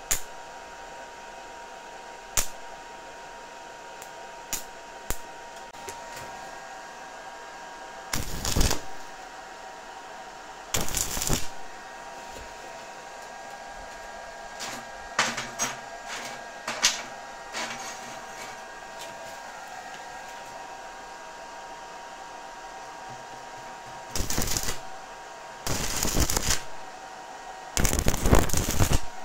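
Stick-welding arc crackling from a handheld mini MMA welder tacking thin 2 mm square tube: a series of short arc strikes and bursts, the longest about a second, with three in quick succession near the end. A steady hum runs underneath.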